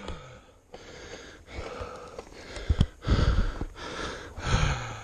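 A person breathing hard in a run of short, noisy breaths, about one a second, with a few low knocks and rumbles partway through.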